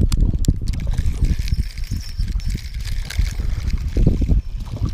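Water lapping and trickling at night under a fishing pier, mixed with an irregular, gusty rumble of wind on the microphone.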